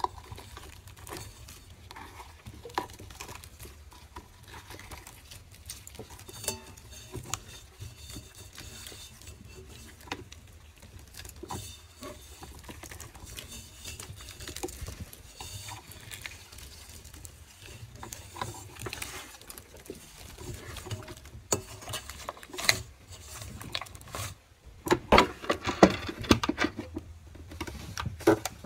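Thick slime being squeezed and pulled apart by hand in a stainless steel mixing bowl: many small, irregular sticky clicks and pops, busier and louder a little before the end.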